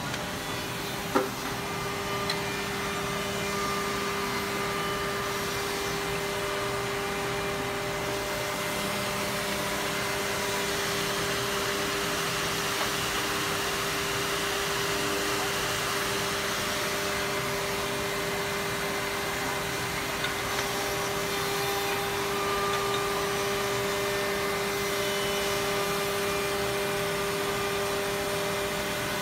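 Woodmaster WM-D200CNC-FR CNC double-end oval tenoning machine running as its cutters shape tenons on clamped wood. It makes a steady whine over an even rushing noise, with a single sharp click about a second in.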